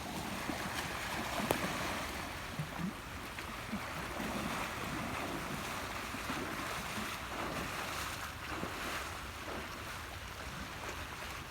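Steady hiss of rain and moving water, with a few faint ticks scattered through it.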